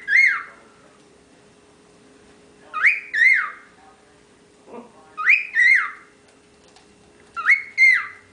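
Young male cockatiel whistling a short two-note phrase, each note sweeping up then down, repeated about every two and a half seconds.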